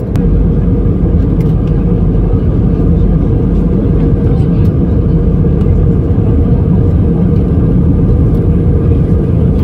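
Steady, loud cabin noise of an airliner in flight: an even low rush of engines and airflow that does not change.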